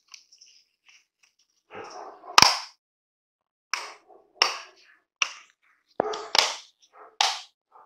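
Clear acrylic front lens of a Citroën C3 Aircross instrument cluster being pressed onto its plastic housing, the clips snapping home in about seven sharp plastic clicks, the loudest about two and a half seconds in.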